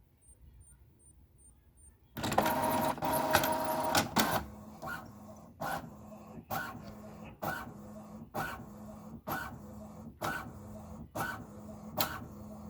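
HP Envy 4500 inkjet printer starting a print run. About two seconds in it starts with a loud whirring paper feed. Then the print carriage sweeps back and forth in regular strokes about once a second over a steady motor hum.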